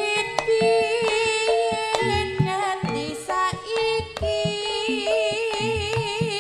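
A female singer (sinden) sings a long line with a wide, wavering vibrato over Javanese gamelan: deep kendang drum strokes and short struck metal gamelan notes.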